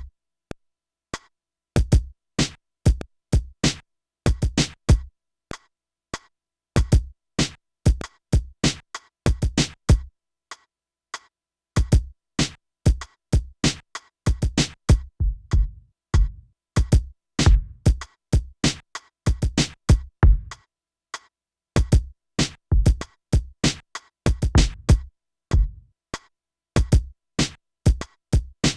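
Beat played on an Akai MPC: a programmed drum pattern of deep kicks and crisp hi-hat and snare hits in a steady groove. It drops out for about two seconds around a third of the way in, then comes back.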